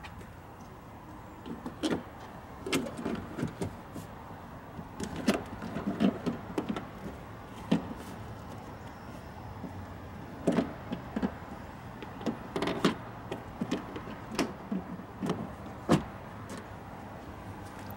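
Irregular clunks, knocks and rattles of hands working on an old pickup's open door and its door panel, with no steady rhythm.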